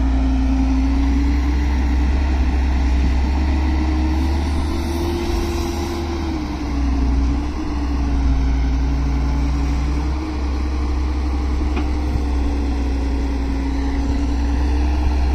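Halla wheeled excavator's diesel engine running steadily under hydraulic load while digging and loading earth, over a deep low rumble. The engine pitch rises a little about five seconds in and dips again around seven seconds.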